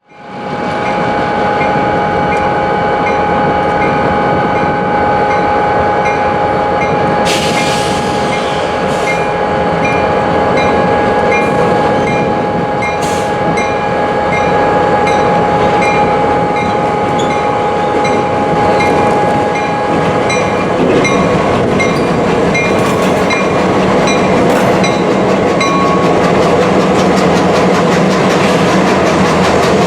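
Freight train moving through a rail yard: a steady running noise with a sustained whine that fades out about two-thirds of the way in and a regular light ticking. A few sharp clanks come in the first half.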